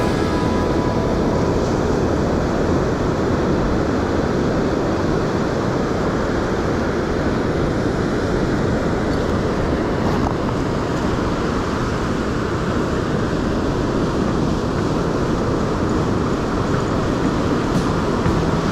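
Steady, dense rumbling noise of wind on the microphone and surf on the beach, unchanging throughout.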